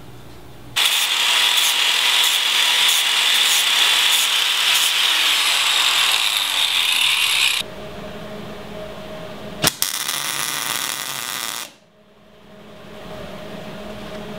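Angle grinder grinding down a steel ram mount bracket, loud and steady with a whine, for about seven seconds before it cuts off. A few seconds later, after a sharp click, a welder crackles through a short tack weld of about two seconds that stops suddenly.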